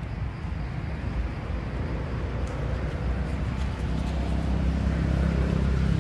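Low engine rumble of a motor vehicle, growing louder in the second half.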